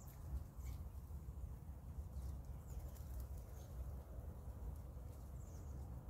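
A few faint, short bird chirps scattered over a steady low background rumble.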